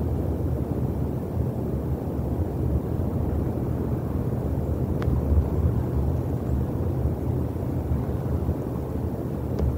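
A steady low rumble, with two faint sharp clicks: one about halfway through and one near the end.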